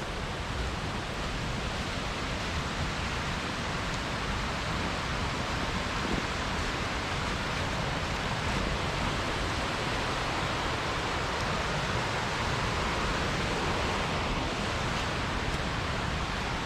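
Steady rushing of flowing water over a shallow streambed, an even noise that holds at the same level throughout.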